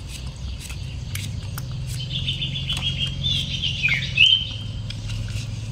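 High-pitched chirping calls: a run of them starting about two seconds in, then a falling squeak and a short held note around the four-second mark. A low steady hum and scattered small clicks run underneath.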